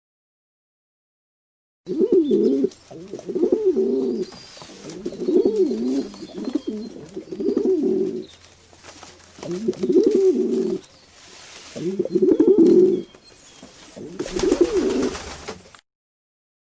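Pigeons cooing: a run of about seven low, wavering coos with short gaps between them. They start about two seconds in and stop about a second before the end.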